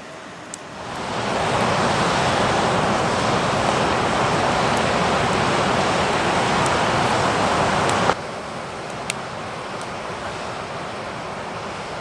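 Steady rush of whitewater, fading in over the first second or two. It cuts off abruptly about eight seconds in, leaving a quieter, steady rush.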